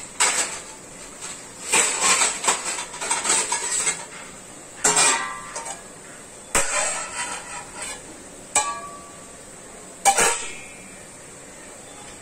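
Metal dishes and kitchen utensils clattering: a run of quick clinks and knocks, then four separate strikes a second or two apart, some leaving a short metallic ring.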